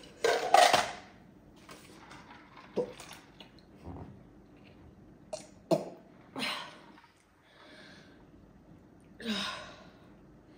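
A person coughing and clearing their throat, with a loud cough at the start and scattered shorter coughs, gags and breaths after it: a reaction to the bitter taste of Marmite.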